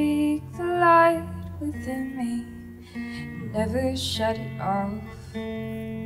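Live song: a woman singing into a microphone over strummed guitar, her voice coming in phrases about a second in and again around four seconds in, with the guitar chords held between them.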